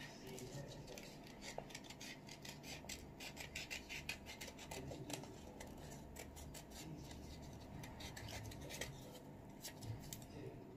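Small craft scissors cutting paper: a long, faint run of short snips and crisp paper cuts.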